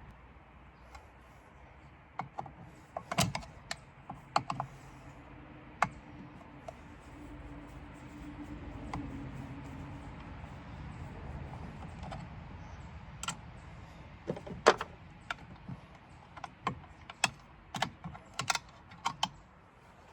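Irregular metallic clicks and taps of hand tools working on an outboard motor's top end, a few sharp knocks and a quicker run of clicks near the end. A faint steady hum sounds in the middle.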